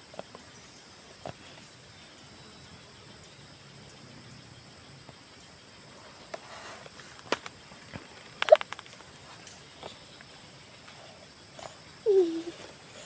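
Steady, high-pitched drone of forest insects such as crickets or cicadas, with a few sharp clicks over it, the loudest about two-thirds of the way in, and a short call falling in pitch near the end.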